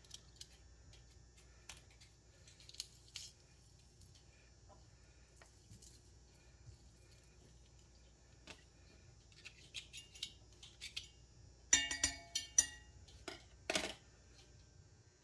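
Light clicks and taps of kitchen utensils being handled, then a burst of clinking and clattering about twelve seconds in, one clink ringing briefly.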